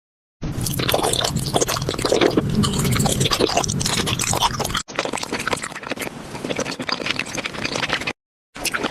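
Paper crinkling and scraping, a dense crackle of small clicks, heard in three stretches with abrupt cuts between them.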